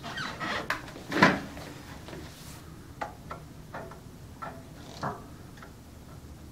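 Light clicks and taps of a screwdriver tip against the hipot tester's back panel as it is fumbled into the slot of the voltage-adjust potentiometer, with one louder knock about a second in and a string of small ticks after it.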